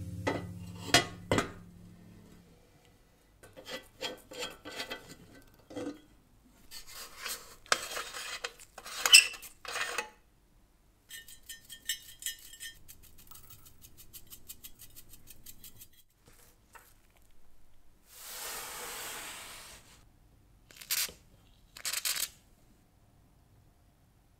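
Metal tools and parts of an antique brass and cast-iron camp stove being handled: a spanner clinking on a corroded nut, clinks and scraping, and a quick rattle about halfway through. A steady hiss lasts about two seconds, followed by two short scraping bursts.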